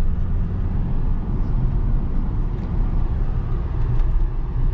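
Steady road noise inside a moving car's cabin: a low engine and tyre rumble while driving.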